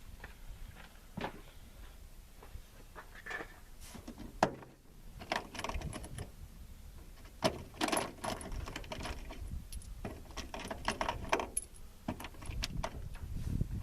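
Rummaging for ammunition: loose metal items clinking and rattling, with scattered sharp clicks and one louder click about four seconds in.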